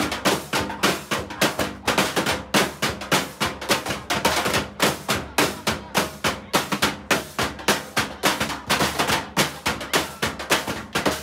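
A junk-percussion ensemble drumming with sticks on blue plastic containers and scrap metal. It plays a fast, even rhythm of sharp hits, about four a second.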